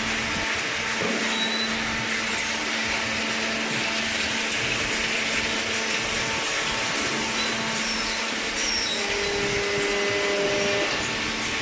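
A machine running steadily: an even whirring hiss with a low steady hum beneath it, and a faint extra tone joining briefly near the end.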